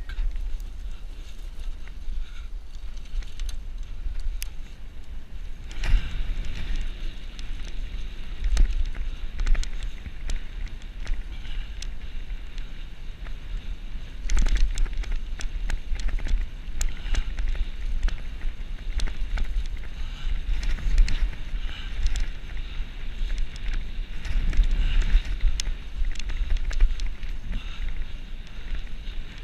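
Wind buffeting the camera's microphone during a fast ride along a dirt forest track, with the rumble of tyres over the ground and scattered rattling knocks from bumps. The buffeting comes in louder gusts about a quarter of the way in, around the middle and again near the end.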